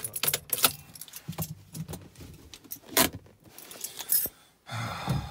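A bunch of keys jangling and clinking in a car cabin, a run of short sharp rattles with the loudest clink about three seconds in.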